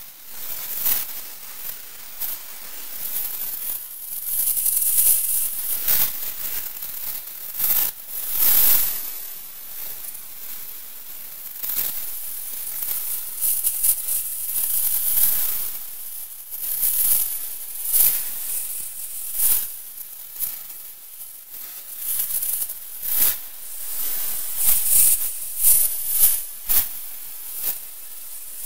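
Electroacoustic tape music: dense, hissing and crackling noise textures, mostly high in pitch, that swell and fade in irregular surges, broken by many short crackles.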